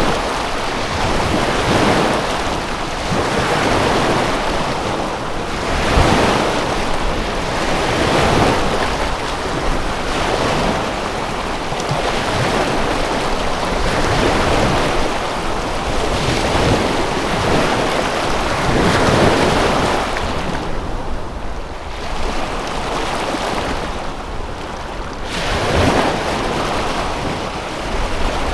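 Waves washing in one after another with wind, a rushing surge about every two seconds; the highs ease off for a few seconds from about twenty seconds in.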